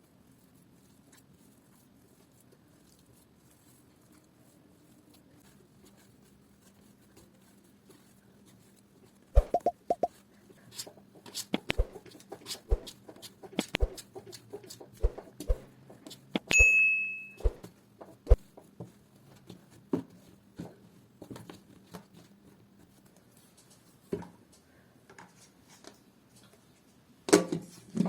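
Kitchen handling sounds: a run of sharp knocks and clicks of utensils and containers, with one short ringing clink about halfway through and a louder knock near the end, after several seconds of low steady hum.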